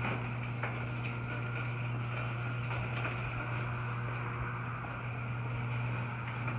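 A LiftMaster 8365 chain-drive garage door opener runs steadily, its motor humming evenly as it moves the door. A few faint, short, high squeaks come through now and then.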